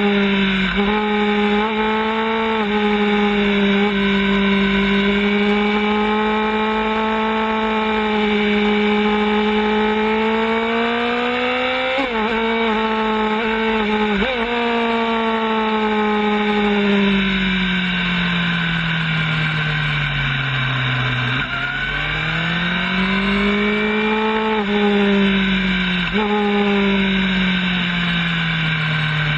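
Racing sport bike's engine at high revs, heard from its own onboard camera with wind rush. The pitch drops sharply several times as gears change, falls slowly for several seconds from about halfway through, then climbs again near the end.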